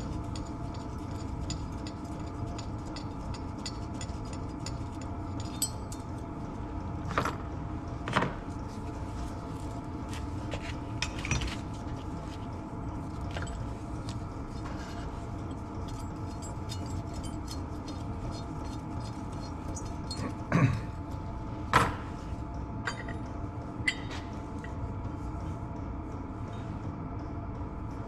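Metal clinks and knocks as the housings and parts of a Garrett T04E turbocharger are handled and taken apart by hand, a few sharp clanks spread through, the loudest two about three-quarters of the way in, over a steady background hum.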